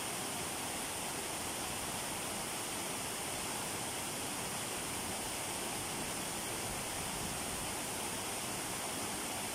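Small cascading waterfall tumbling over rocks and fallen logs: a steady rush of falling and splashing water that does not change.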